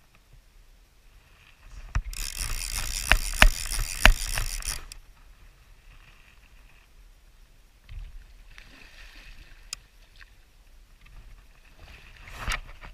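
Fly reel's ratchet check running for about three seconds as a hooked salmon takes line, with a few sharp knocks, followed near the end by a short splash from the fish at the surface.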